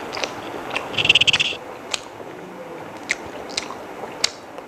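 Close-up eating sounds of a person chewing chicken biryani: wet mouth clicks at irregular intervals, with a short crunchy crackle about a second in.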